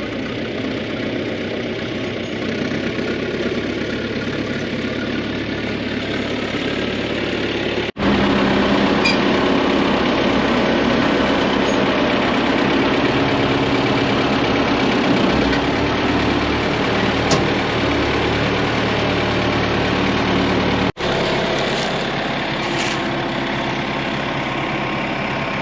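Tractor-backhoe engine running steadily, louder through the middle stretch with a brief break where it steps up and another where it drops back.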